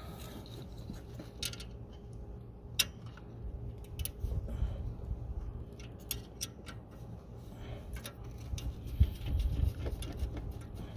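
Irregular metallic clicks and taps of a ratchet wrench and 10 mm socket working the bolt that holds the battery cables to a car alternator, over a low rumble.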